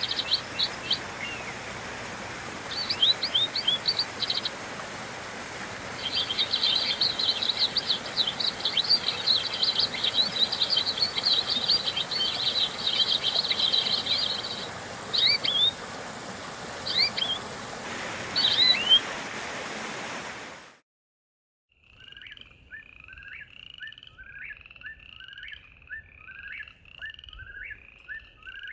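Forest songbirds chirping and trilling over a steady rushing background, with one long, rapid chattering trill near the middle. About two-thirds of the way through the sound cuts off abruptly. After a second of silence a quieter scene begins: an animal repeating a two-part call evenly, a little over once a second.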